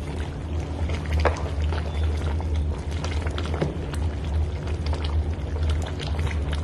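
Pot of waterleaf and ugu leaf soup boiling, bubbling and popping irregularly over a steady low hum.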